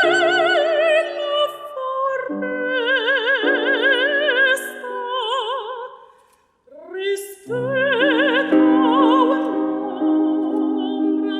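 Chinese art song performed in classical style: an operatic voice with wide vibrato sings long phrases over piano chords. The music breaks off briefly about six seconds in, then voice and piano come back in together.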